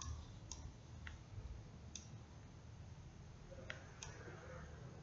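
Computer mouse clicking about five times at uneven intervals over a low, steady hum.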